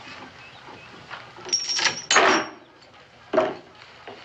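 A short squeak, then a louder scraping knock a little past two seconds in and another shorter knock about a second later.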